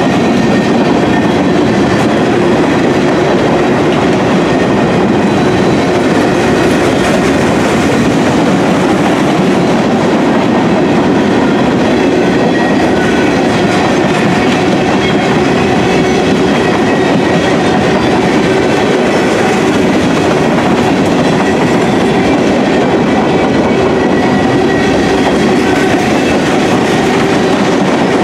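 Freight train gondola cars rolling past close by: a loud, steady run of steel wheels on the rails that does not let up.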